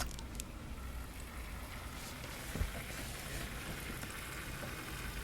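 Newly built desktop PC running just after its first boot: its case and radiator fans spinning with a steady airy hiss over a low rumble. One soft thump about two and a half seconds in.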